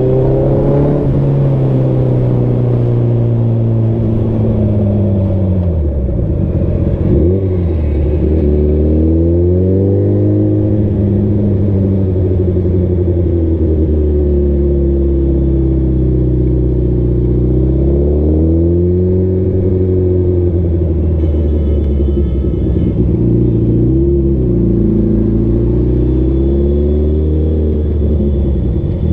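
Sport motorcycle's engine running under way, its note rising and falling several times as the rider opens and closes the throttle, with one deep drop in revs about six seconds in.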